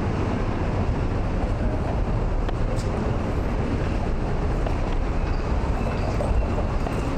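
Steady low rumble of city street traffic, with no distinct single event standing out.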